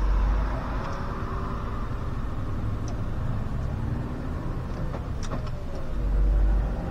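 A SOR CN10.5 bus driving along, its engine running under a steady low rumble with road noise. A few sharp clicks or rattles come about five seconds in, and near the end the engine note dips and then rises again as the rumble swells.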